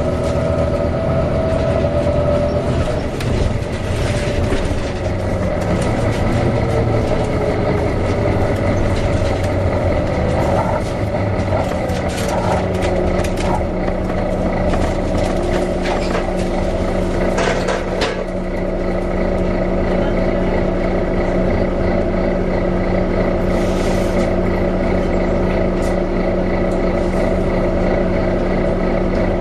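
Volvo B9TL double-decker bus engine running with its cooling fan whining; the whine falls in pitch over several seconds, then holds steady. A scattering of clicks early in the first half.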